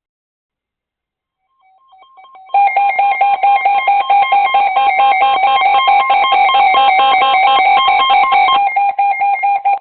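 Electronic weather-alert tone: fast, rapidly switching beeping pitches, like a ringtone, announcing a new weather radio alert. It starts faintly about a second and a half in and turns loud a second later.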